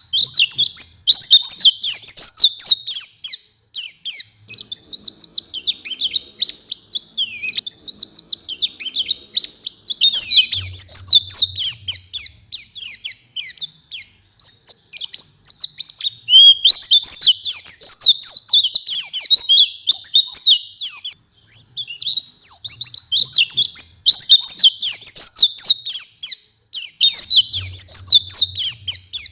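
White-eye (pleci) singing a fast, chattering, high-pitched song of quick twittering notes. It comes in phrases of several seconds broken by short pauses of about a second.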